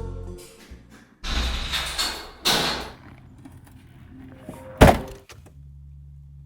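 A couple of seconds of rustling noise, then a door shutting with a single loud thud about five seconds in, followed by a low steady hum.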